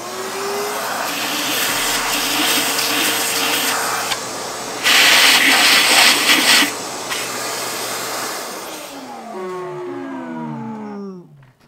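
A shop vac is switched on and runs with a steady rushing whine as it sucks debris out of an engine's spark plug holes. It gets louder for about two seconds midway while the nozzle is at the cylinder head. It is then switched off, and its motor whine falls in pitch as it winds down.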